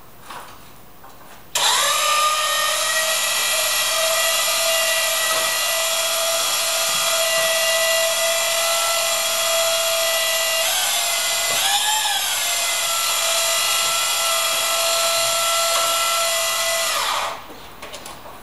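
Electric motor of a glass panel lift running steadily while it hoists a glass pane, a high, even whine that starts about a second and a half in. Its pitch dips and recovers briefly about two-thirds of the way through, and it cuts off shortly before the end.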